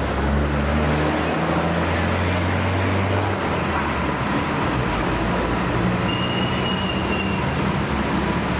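BTS Skytrain electric train at an elevated station, with a steady low hum that stops about three seconds in and thin high-pitched squealing tones near the end, over constant street traffic noise.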